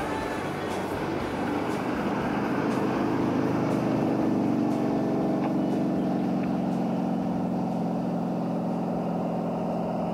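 Motorboat engine running steadily, getting louder about three seconds in and then holding.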